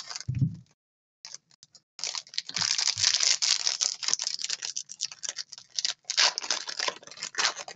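Foil trading-card pack wrappers crinkling and tearing open, with cards sliding out and clicking against each other in quick, irregular handling noises. There is a soft thump just after it starts and a brief hush about a second in.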